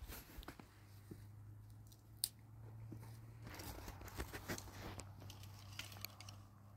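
Faint snapping and crackling of dry twigs and brushwood being broken and handled over a fire pit, with scattered sharp clicks and one sharper snap about two seconds in.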